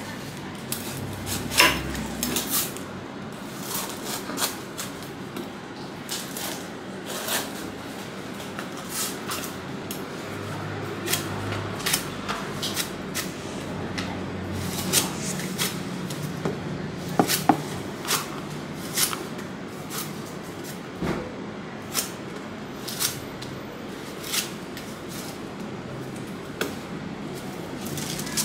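Knife blade knocking and cutting into a durian's spiky husk on a wooden chopping block as it is pried open: a run of sharp, irregular clicks and knocks, roughly one a second, over steady background noise.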